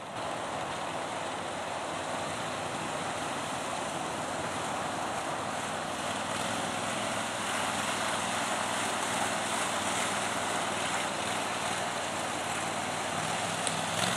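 Max IV six-wheel amphibious ATV's small engine running as the machine drives through swamp water and mud, growing steadily louder as it approaches.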